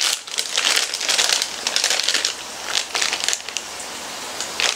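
Plastic snack packet crinkling and crackling as it is torn open and handled, dense for the first few seconds and then quieter, with a few sharp crackles near the end.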